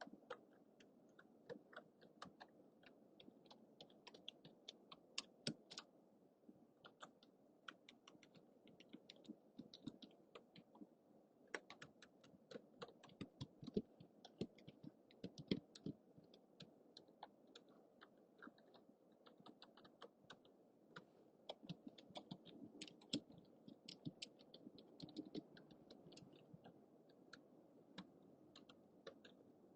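Typing on a computer keyboard: faint, irregular keystroke clicks, several a second, over the steady hiss of a low-budget microphone.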